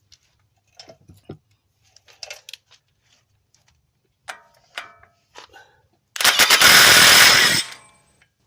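Small metal clicks and clinks of tools and socket, then a loud rattling burst of about a second and a half from an impact wrench, driving the new CV axle's 36 mm axle bolt home.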